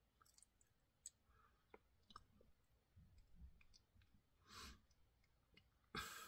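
Near silence: room tone with faint scattered clicks, a soft brief rush of noise about four and a half seconds in and a slightly louder one at the very end.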